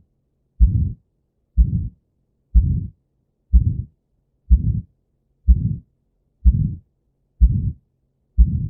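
Heart beating about once a second, each beat a sharp first heart sound followed by a short, noisy systolic murmur: the murmur of aortic stenosis.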